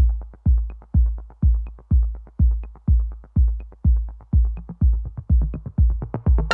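Electronic background music: a steady kick-drum beat, about two a second, with light hi-hat ticks between the kicks.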